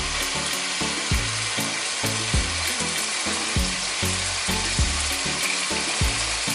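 Raw chicken pieces sizzling in hot oil in an aluminium pot while being turned with a wooden spatula, with soft low thumps about once a second from the stirring. This is the first fry, which takes the chicken from pink to white.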